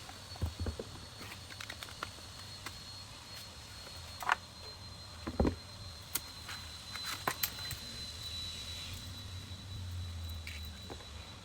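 Close-up handling of a boxed calendar being unpacked: scattered light taps and clicks, with two louder knocks about four and five and a half seconds in. A faint steady high-pitched tone and low hum run underneath.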